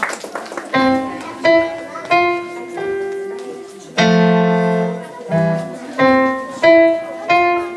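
Electronic keyboard played with a piano voice: single notes and chords struck one after another, a new one roughly every two-thirds of a second, with a fuller, louder chord about four seconds in.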